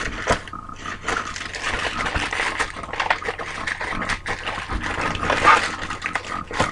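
Packaging being torn and unwrapped by hand: continuous rustling and crinkling with many small clicks and snaps.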